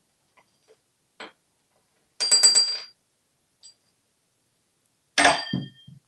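African grey parrot clattering a metal spoon on the countertop (spoon music): a few light taps, then a quick rattle of strikes with a metallic ring about two seconds in, and one loud clang with ringing a little after five seconds.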